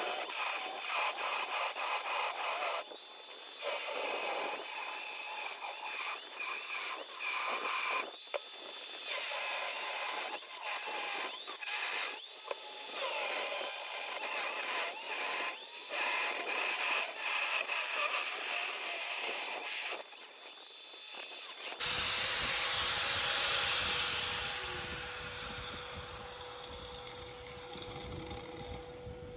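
Power cutting tool, an abrasive cutoff wheel throwing sparks, cutting through the steel shell of a hermetic refrigerator compressor to remove its cap. A steady, high-pitched grinding, easing off briefly every few seconds with the tool's pitch sweeping back up each time, then stopping about three-quarters of the way through and fading away.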